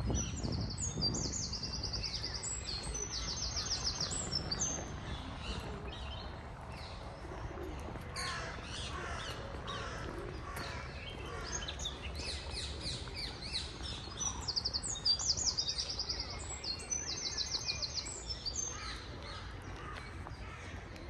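Songbirds singing: bursts of rapid, high trills come back several times, with scattered chirps in between, over a low, steady background rumble.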